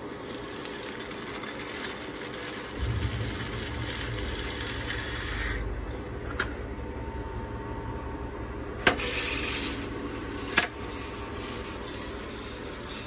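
Green coffee beans poured into the loading hopper of a ROEST sample roaster, a steady rushing rattle. A low hum comes in about three seconds in. Two sharp clicks sound about nine and ten and a half seconds in, with another short rush of noise between them.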